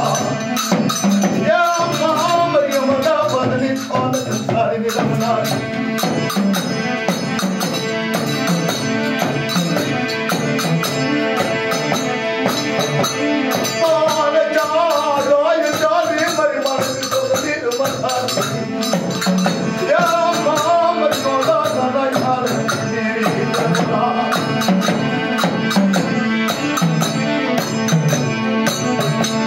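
Music with fast, steady high percussion and a melody line that wavers up and down.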